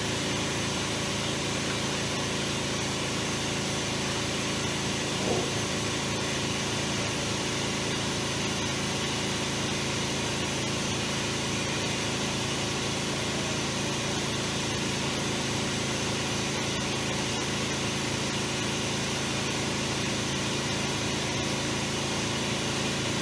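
Steady machine hum of a robot workcell, with constant tones under a hiss, and a faint brief click about five seconds in.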